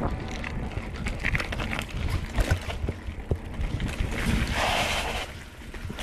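Wind buffeting the microphone during a bicycle ride, with scattered clicks and rattles and a louder rush of noise about four seconds in.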